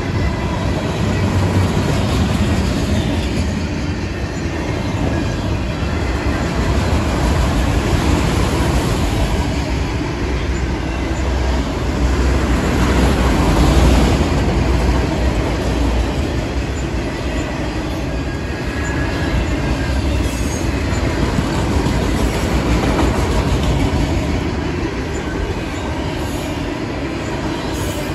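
Freight cars rolling past at close range: steady rumble and clatter of steel wheels over the rail joints, swelling a little about halfway through, with a few faint high wheel squeals.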